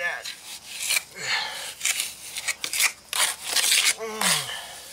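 A hand rubbing and pressing wet Rapid Set mortar into a chipped concrete step edge, heard as a quick series of gritty scraping strokes.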